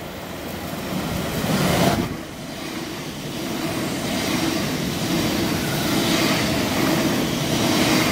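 Thameslink Class 700 electric multiple unit passing close by at speed. It is a steady rushing and rumbling of the moving train, building to a peak as the front arrives about two seconds in, then holding loud as the carriages go by.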